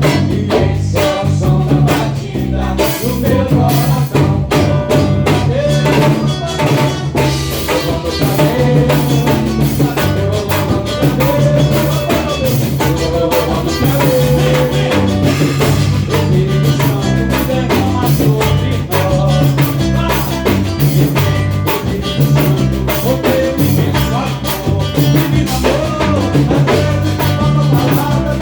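Band music with a drum kit keeping a steady beat over bass and other instruments.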